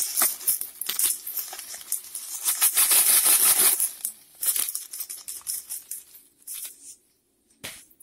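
Caustic soda being poured from a plastic bag into a bucket of detergent solution: a dense rattling patter with the bag crinkling. It thins out to a few scattered clicks after about four seconds.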